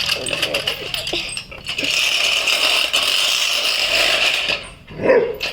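Lawnmower running with a rattling hiss that starts about two seconds in and stops sharply a little over four seconds in. Scattered clicks and knocks come before and after it.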